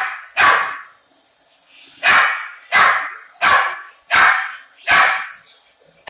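A puppy barking at a Roomba robot vacuum: seven loud barks, two in quick succession, then after a short pause five more at a steady pace of about one and a half a second.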